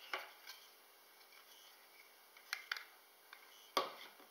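A few light clicks and knocks of an aluminium FLIRC case and its black plastic inner piece being handled and set down on a wooden table, the sharpest knock near the end.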